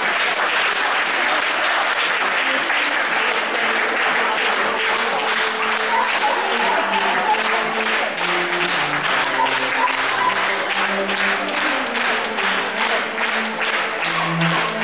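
Audience applause that settles into steady rhythmic clapping, several claps a second, with music playing underneath.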